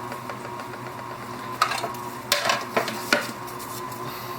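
Plastic parts of an Epson U220 receipt printer being handled and fitted by hand: a few light clicks and short rattles, the first about one and a half seconds in and more around two and a half to three seconds, over a faint steady hum.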